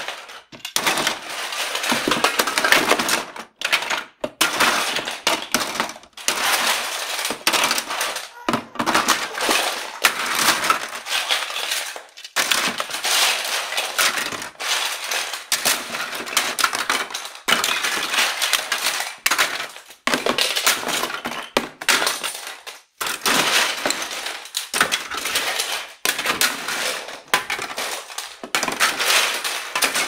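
Toys being gathered up and dropped into a toy box: a near-continuous clatter of small knocks and clinks, with brief pauses every few seconds.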